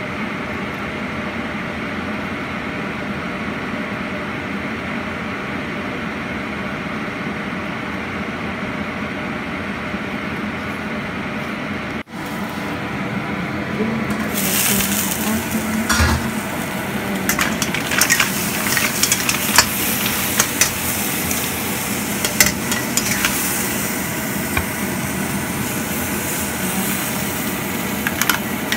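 Mussels cooking in a covered wok: a steady low rumble for about twelve seconds, then, after a brief break, the lid comes off and loud sizzling takes over, with clicks and clatter of the shells being stirred in the wok.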